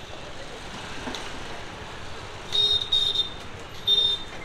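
Vehicle horn honking three short times over the street noise of a busy market, about two and a half, three and four seconds in.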